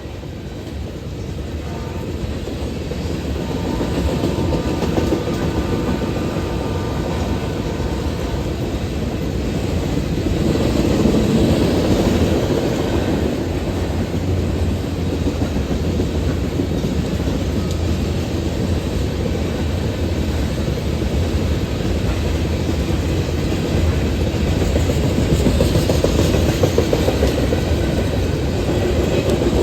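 BNSF coal train rolling past: a steady rumble of steel wheels on rail with the clickety-clack of the cars over the rail joints, growing louder over the first few seconds and then holding.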